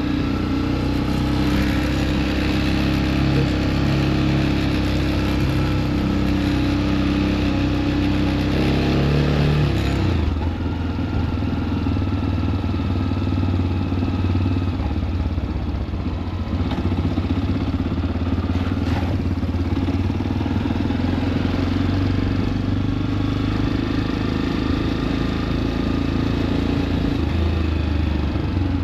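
Motorcycle engine running steadily while riding, its note shifting about ten seconds in and then holding steady again.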